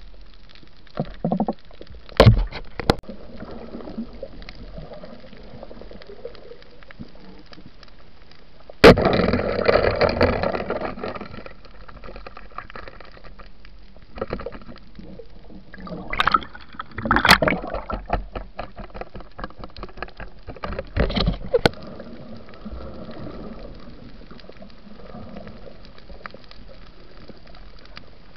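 Muffled water sounds picked up by an underwater camera on a night dive: a steady low hiss broken by several loud gurgling, sloshing bursts of water and bubbles. The largest lasts about two seconds, a third of the way in, and shorter ones come in a cluster past the middle.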